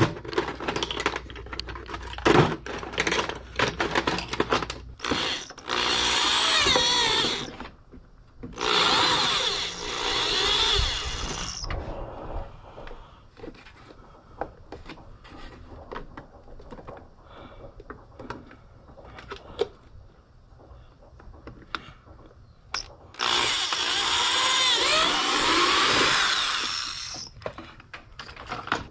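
Handheld power drill boring holes for rivet nuts in a car's armrest panel, in three runs of a few seconds each with the motor speed sliding up and down. Between the runs there are clicks and rattles of handling parts and hardware.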